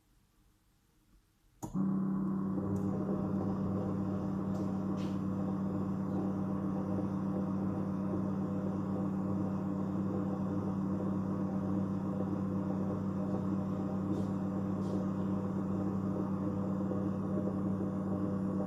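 Thermomix TM21 motor starting up about two seconds in, then running with a steady even hum, with a few faint clicks over it.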